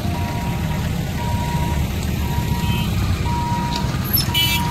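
Level-crossing barrier warning hooter beeping one steady tone about once a second while the boom lifts, over the low running of idling motorcycle engines. A brief high-pitched ring sounds near the end.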